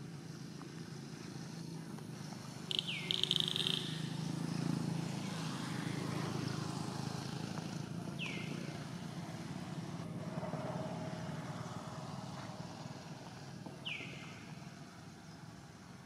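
A bird's short chirp sliding downward in pitch, heard three times about five seconds apart, over the steady low hum of an engine running in the background.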